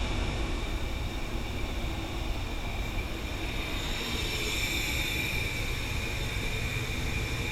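CompAir L37S-9 37 kW rotary screw air compressor running, a steady mechanical drone with a high whine on top that grows a little stronger about four seconds in.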